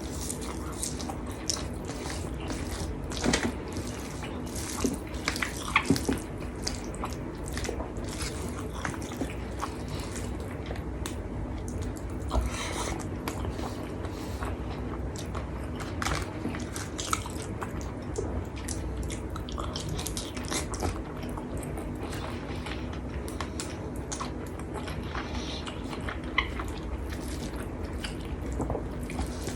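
Close-up eating sounds of a person chewing a rice meal with crispy cow-skin crackers (kerupuk kulit): irregular wet smacking and crunching, with a few louder crunches around 3 and 6 seconds in, over a steady low hum.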